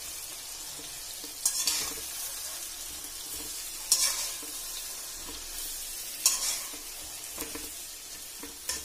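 Masala-stuffed baby brinjals frying in oil in a kadhai, a steady sizzle, while a slotted metal spatula scrapes the pan and turns them several times, a couple of seconds apart.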